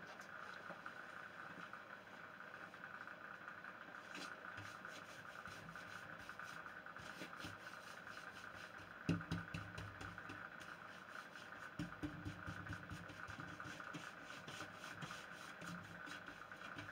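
Cloth rubbing over a stripped pine door freshly coated with Briwax, buffing the wax: faint irregular scuffs and knocks from about nine seconds in, over a faint steady hum.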